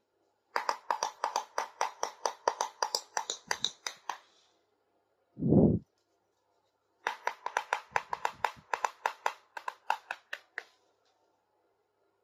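Quick, even clicking of small plastic toy kitchen pieces or their packaging being handled, about seven clicks a second, in two runs of a few seconds each. A single dull thump between the runs is the loudest sound.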